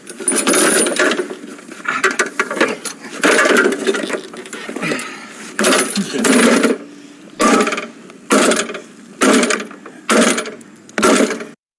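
Metal clattering and banging, then about six heavy strikes roughly a second apart, each ringing briefly, as of a lawnmower being beaten.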